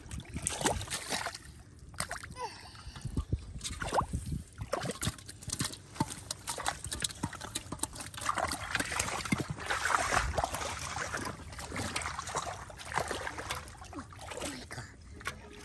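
Shallow muddy water splashing and sloshing as hands grab at fish, with many short, irregular splashes that grow busier for a few seconds in the middle.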